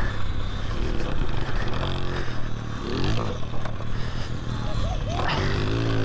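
Talaria Sting R MX4 electric dirt bike riding on a dirt trail: steady motor hum whose pitch rises and falls with the throttle, over a constant rush of wind and trail noise.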